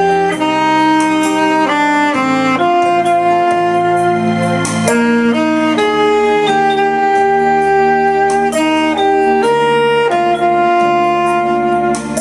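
Saxophone playing a melody of long held notes over a steady backing accompaniment.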